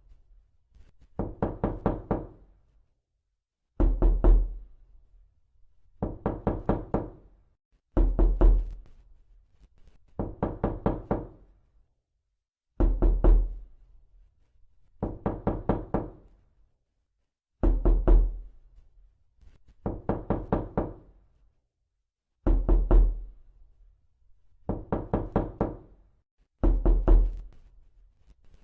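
Knocking on a hard surface, in quick sets of four or five knocks with a short pause between sets. This repeats steadily about every two and a half seconds, with a heavier set that has a deep thud alternating with a lighter set.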